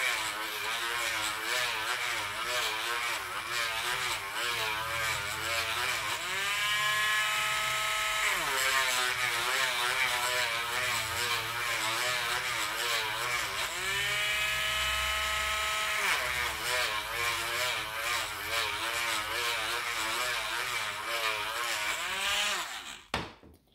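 Cordless Dremel rotary tool running with its bit grinding inside the cut centre hole of a Morgan silver dollar, cleaning flaws off the cut edge so the ring won't split or crack later. Its whine wavers in pitch as it works the metal, twice rises to a steadier higher pitch for a couple of seconds, and stops suddenly near the end.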